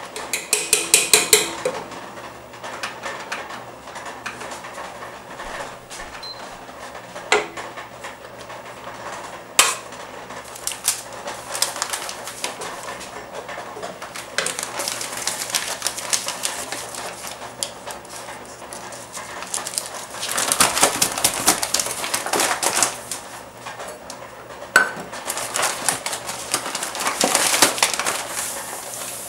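A spoon stirring frozen berries in a stainless steel pot, scraping the bottom and knocking against the sides, with a rapid clatter about a second in and a few single knocks.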